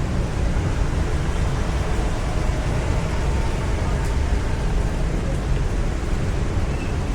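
Steady storm wind and rain hiss, with a deep rumble of wind buffeting the microphone.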